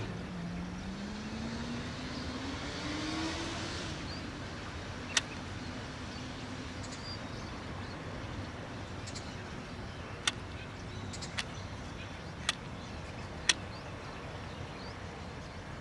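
A car going past and accelerating, its engine note rising steadily over the first few seconds and then fading, leaving a steady background hum. A few sharp clicks come later on.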